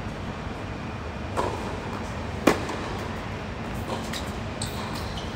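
Tennis ball impacts on a hard court: a soft knock just over a second in and one sharp, loud crack about two and a half seconds in, then a few light taps and short high squeaks near the end, over a steady hum.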